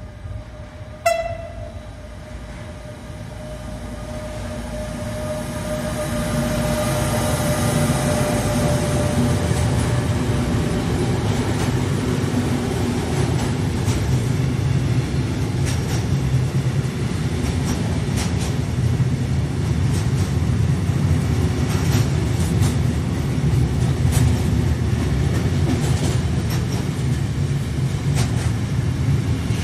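Intermodal freight train hauled by a Railpool E186 (Bombardier TRAXX) electric locomotive, with a short horn blast about a second in. The rumble grows as the train draws near and then holds loud and steady as the container and trailer wagons pass at speed, with repeated wheel clicks over the rail joints.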